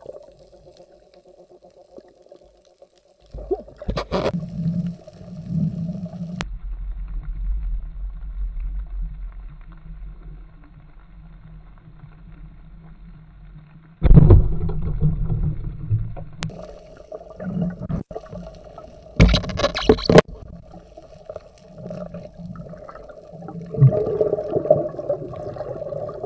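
Underwater sound picked up through a camera housing on a night spearfishing dive: a low, muffled rumble of moving water that sets in suddenly about three seconds in and again at about fourteen seconds, with several sharp knocks and bumps on the housing.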